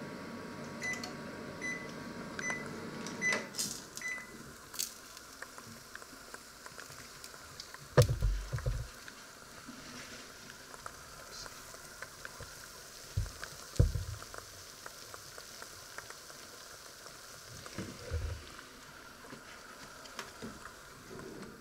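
Panasonic combination microwave oven running with a steady hum, then about five short high beeps, evenly spaced under a second apart, as its cooking cycle ends, and the hum stops. After that, the oven door is opened and the metal tray and rack inside are handled with an oven mitt, with a loud clunk about 8 seconds in and smaller knocks around 13 to 14 seconds and 18 seconds.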